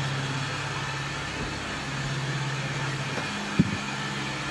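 A train standing at a station platform: a steady low mechanical hum, with one sharp knock about three and a half seconds in.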